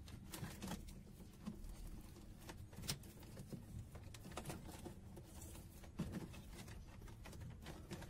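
Faint rustling and a few small clicks, the clearest about three and six seconds in, as hands wrap electrical tape around washing-machine motor wires.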